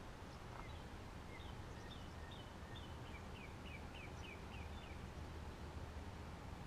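Faint outdoor ambience picked up by a bare GoPro Hero 3+ Silver's built-in microphone: a steady low rumble and hiss. Over it, a bird gives a quick series of short, high chirps, each slurring downward, from about a second and a half in until past the middle.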